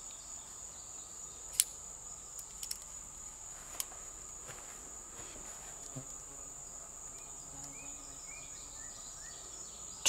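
Steady high-pitched chorus of insects, with a few faint clicks in the first four seconds as digital calipers and a cartridge are handled.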